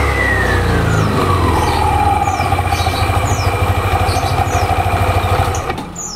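Yamaha NMAX 155 VVA scooter's single-cylinder engine with its CVT open, coming down off a rev: the whine of the spinning pulleys and belt falls in pitch over the first two seconds, then the engine runs on at low revs with an even low pulsing. The engine is switched off near the end. Faint bird chirps can be heard over it.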